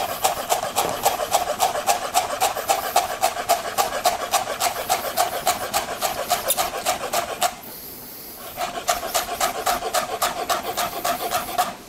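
Chef's knife mincing fresh cilantro on a plastic cutting board: quick, even chops, about six a second, stopping for about a second roughly two-thirds of the way through and then carrying on.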